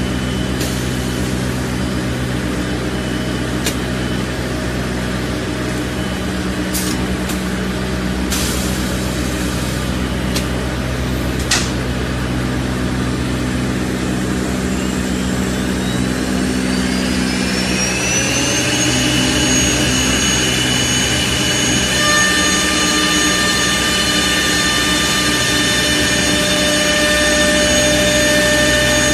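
CNC pool cue lathe running with a steady motor hum and a few sharp clicks. About halfway through, a whine rises in pitch over a few seconds and then holds steady and high: a motor spinning up to speed.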